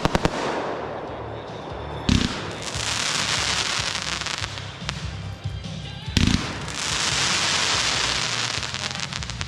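Aerial firework shells going off: a quick run of sharp pops at the start, then two bursts about four seconds apart. Each burst is followed by a few seconds of dense crackling.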